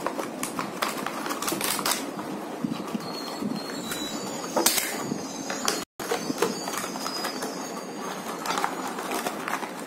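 Hands handling a clear plastic blister pack and small cardboard box: irregular crinkling, clicking and tapping of plastic on the desk. The audio cuts out for a split second about six seconds in.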